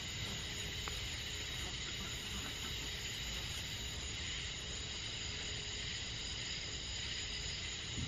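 Crickets and other night insects calling in a steady chorus, a dense high-pitched trilling, over a low steady rumble.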